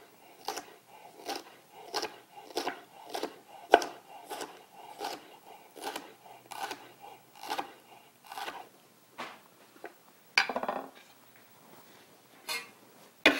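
Chef's knife julienning red bell pepper on a wooden cutting board: the blade knocks on the board in a steady rhythm, about two cuts a second, for around eight seconds. A few scattered louder knocks follow near the end.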